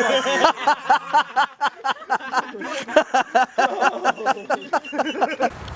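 People laughing, a quick run of short 'ha' syllables about five a second.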